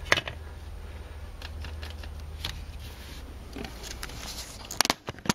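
Loose plastic dashboard trim being handled by hand: faint rustling and scattered light clicks over a low steady hum, with a few sharper clicks near the end.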